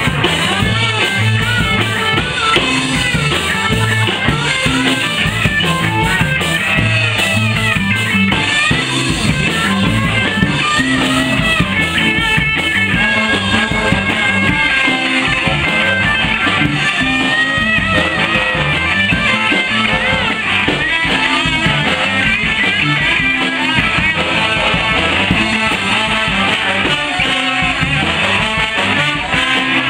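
Live rock band playing: electric guitars, bass and drum kit with a horn section that includes trombone, all in a steady groove.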